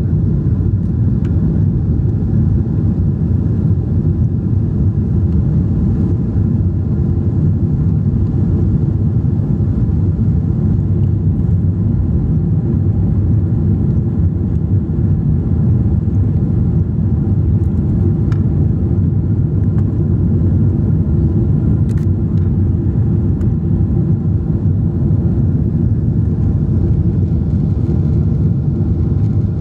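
Steady low cabin roar of a Boeing 777-200's twin jet engines and the airflow over the fuselage, heard inside the cabin during the climb after takeoff.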